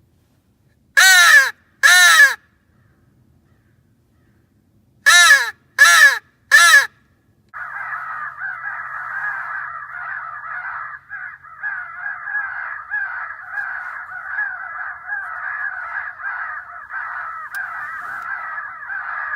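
Loud, close crow caws from a mouth crow call: two caws, then three more a few seconds later. About seven seconds in, a continuous din of many overlapping crow caws begins and runs on, a crow-fight sound played through an electronic caller.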